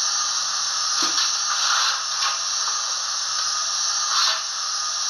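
Coal-shovelling sound effect from the DCC sound decoder of a Hornby OO gauge A4 model locomotive, played through its small onboard speaker. A few irregular scraping shovel strokes come over a steady steam hiss.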